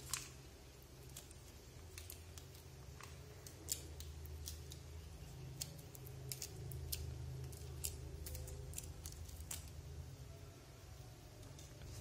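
Handling noise of a jump rope: scattered small clicks and ticks as the plastic cord and its metal twist tie are worked loose, over a low steady hum.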